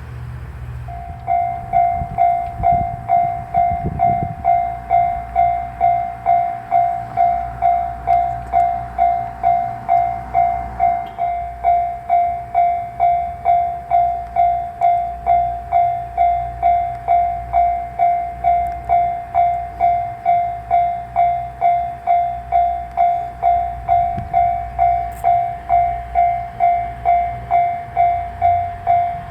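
Railway level-crossing warning bell starts about a second in and rings steadily at about two strikes a second, over a low rumble.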